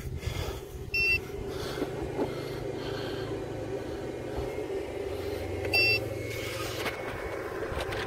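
Two short electronic beeps, about five seconds apart, over a steady low hum.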